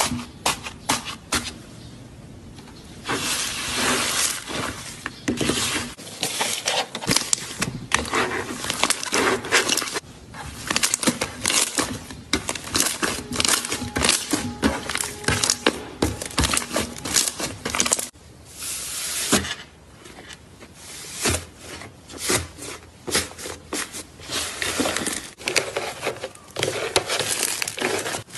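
Hands pressing, poking and kneading slime, giving a dense run of small crackling and popping clicks, with a couple of brief lulls.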